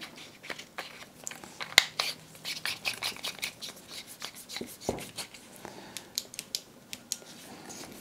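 Small clicks and scrapes of a metal flashlight being handled, its tail cap turning on the threads over a button-top 18650 cell. There is a sharper click about two seconds in and a duller knock about five seconds in.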